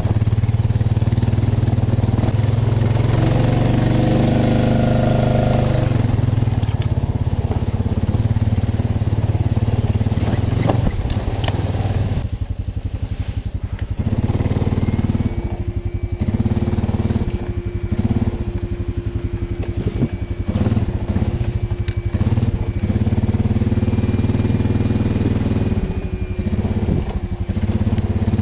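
Honda Rancher 420 ATV's single-cylinder engine running steadily, working hard. From about halfway through, the throttle comes on and off again and again and a thin steady whine rides over it. A few sharp knocks come just before the change.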